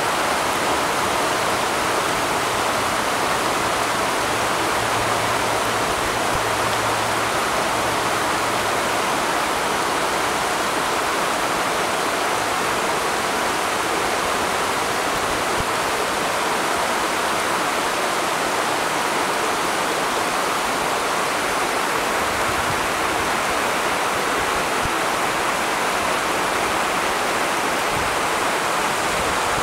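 Steady rush of flowing water, an even unbroken roar with no distinct splashes.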